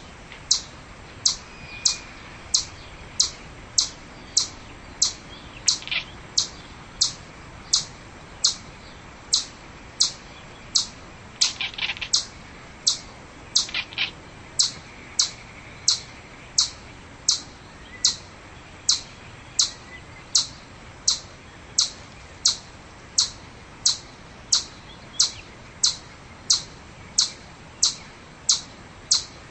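Chipmunk giving a steady series of short, high-pitched chip calls, about three every two seconds, with a quicker flurry of calls twice near the middle.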